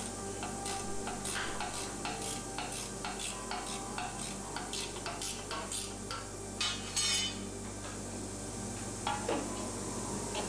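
Small clinks and scrapes of steel flat bar being worked in a bending jig on a steel workbench, over a steady low hum. A louder scrape comes about seven seconds in, and another about nine seconds in.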